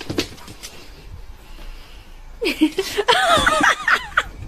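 Door handle clicking as a door is opened, then a person laughing in a high voice from about halfway through.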